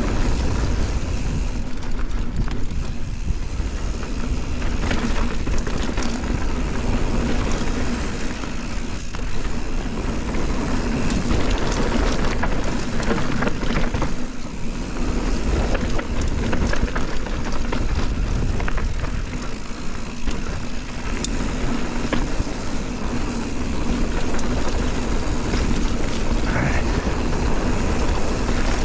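Mountain bike descending a dirt singletrack at speed: wind rushing over the bike-mounted camera's microphone, tyres rolling on dirt and grass, and the bike rattling and clattering over bumps in a steady, noisy stream.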